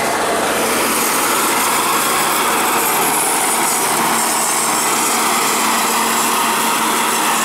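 Kubota B7500 HST compact tractor's 21 hp three-cylinder diesel running steadily under load, driving a 72-inch Bush Hog finishing mower that is cutting grass low, with a constant steady hum.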